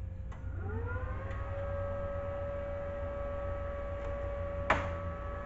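A small electric motor spins up, its whine rising in pitch over about a second, then runs at a steady pitch over a low electrical hum. A sharp click comes near the end.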